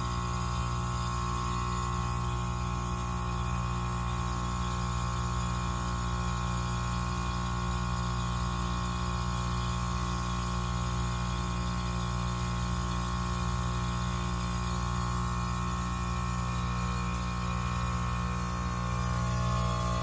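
Goodman 3.5-ton package heat pump in its defrost cycle: the compressor runs with a steady hum made of several held tones, the outdoor fan stopped. It gets a little louder near the end.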